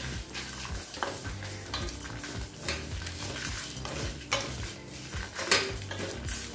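Wooden spatula stirring and scraping whole spices, dried red chillies and grated coconut as they dry-roast in a stainless steel pan, with many short scraping strokes and a sharper knock about five and a half seconds in.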